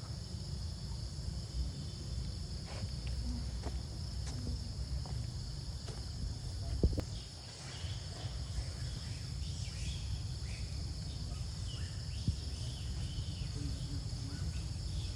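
Insects droning in a steady high-pitched chorus over a low rumbling background noise, with scattered soft clicks and one sharper thump about seven seconds in.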